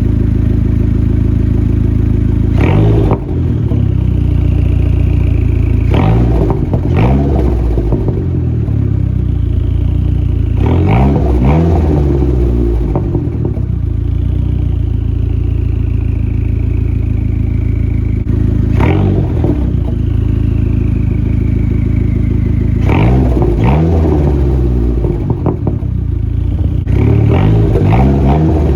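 Dodge SRT-4's turbocharged 2.4-litre four-cylinder idling, with the throttle blipped about six times and the revs falling back each time. A faint whistle falls in pitch after several of the revs. The engine has a vacuum leak that the owner has just found.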